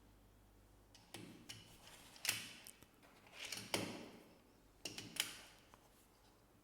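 Plastic magnetic building tiles clicking and clattering as they are handled and snapped together, starting about a second in, with three sharper snaps spread through the middle.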